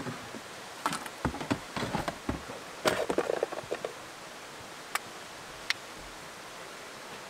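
Knocks, clicks and rustling of gear being handled in the back of an SUV: a burst of clatter in the first few seconds, then two single clicks, over the steady rush of a brook.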